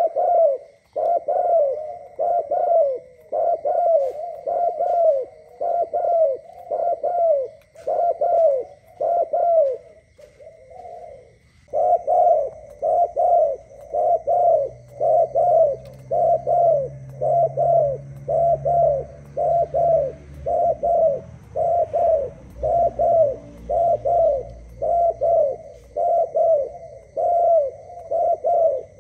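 Spotted dove cooing in a fast, even series of short coos that each fall in pitch, about two a second, with a break of about two seconds near the middle.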